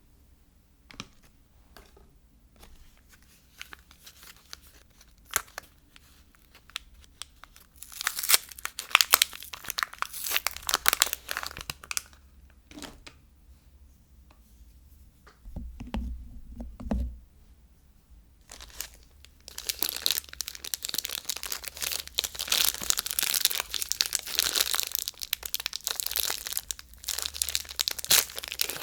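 Soap wrappers being torn open and crinkled by hand. Light scattered ticks give way to a stretch of crackling about eight seconds in and a couple of dull thumps past the middle, then steady crinkling through the last third.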